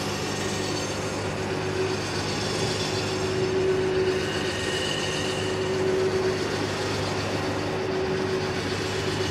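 Rugcel truck-mounted crane's electric winch running steadily as it pays out cable, lowering a portable generator hung from the hook. It sounds as one steady drone with a single held tone.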